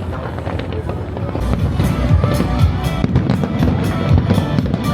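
Fireworks bursting in a rapid string of booms and crackles over music, growing louder about a second and a half in.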